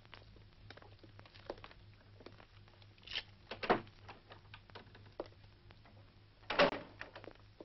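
Scattered light clicks and knocks over a steady low hum, with two louder knocks, the first about three and a half seconds in and the second near the end.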